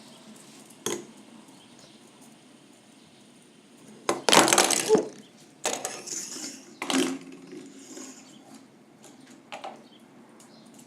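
Fidget spinners handled by hand: a click about a second in, then a loud clattering rattle around four to five seconds in, followed by a few more clicks and knocks.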